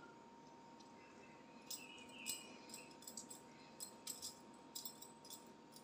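Faint, scattered light clicks and taps of chicken pieces and fingers against a metal wire grill rack as the pieces are turned over by hand, over a steady faint hum.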